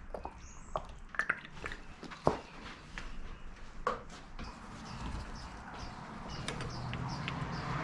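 Sharp clicks and knocks of plastic and metal parts being handled at the radiator filler neck as the coolant-filling funnel is taken off, the loudest a little after two seconds in. From about five seconds in, a soft rubbing noise as a cloth wipes the filler neck.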